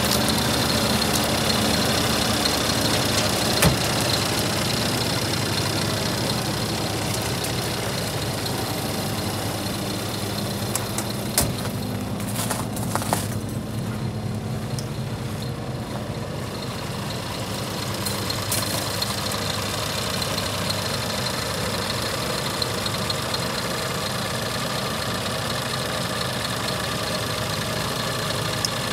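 Scania R480 truck's diesel engine idling steadily, with a few brief sharp knocks.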